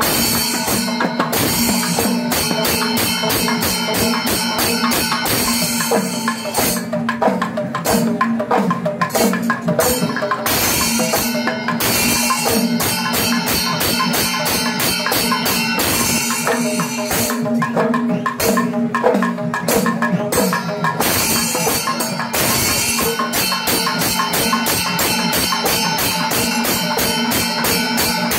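Kerala temple percussion ensemble playing: many barrel drums struck with sticks in a fast, driving rhythm, with cymbals, over a steady held note.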